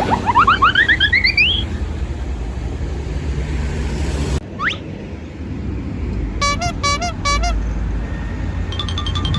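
Vehicle horn and alarm sounds over a low engine rumble: a run of quick rising whoops at the start, a single rising whistle around the middle, then a multi-tone 'telolet' bus horn giving four short toots and then holding a chord near the end.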